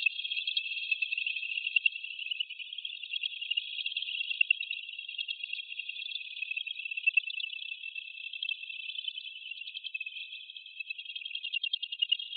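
Continuous chorus of chirping insects, high-pitched and densely pulsing, with no low sound beneath it.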